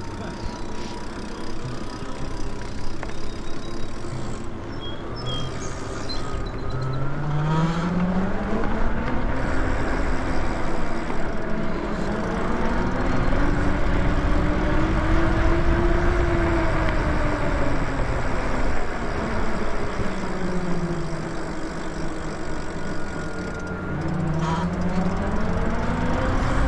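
E-bike electric motor whining under way over a steady rumble of wind and tyre noise. The whine climbs in pitch over several seconds as the bike speeds up, drops as it slows, and climbs again near the end.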